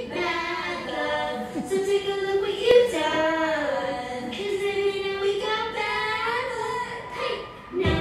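A young girl singing into a handheld microphone, holding long notes that slide up and down in pitch. A brief click sounds a little under three seconds in.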